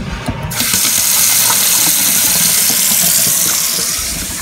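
Kitchen faucet turned on and running into a stainless-steel sink: a steady rush of water that swells up about half a second in.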